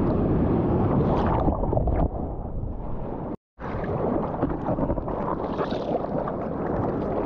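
Rushing water and wind buffeting a GoPro's microphone while surfing: a dense, loud rumble. It cuts out completely for a moment about three and a half seconds in.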